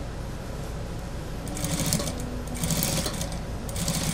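Industrial sewing machine stitching through the layers of a mink vest's front edge as the fabric is fed by hand. It runs steadily, with three louder spurts of stitching in the second half.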